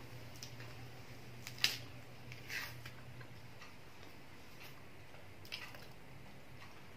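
Faint clicks and a few short rustles of a person chewing a mouthful of banana and peeling the next one. The sharpest click comes about a second and a half in, with brief rustles near the middle and near the end.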